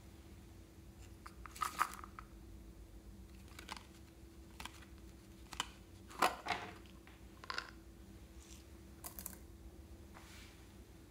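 A scattering of light clicks and taps from a small plastic toy container being handled and opened and small polymer clay slices dropping onto slime and a wooden table, the loudest tap about six seconds in, over a faint steady hum.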